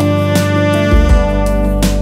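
Instrumental background music: held notes over a steady bass line.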